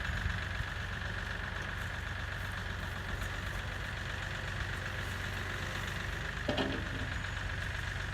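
An engine idling steadily, with a single knock near the end.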